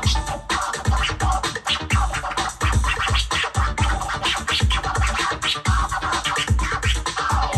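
Turntable scratching with a control vinyl over an electro-funk drum-machine beat with a steady kick drum about twice a second.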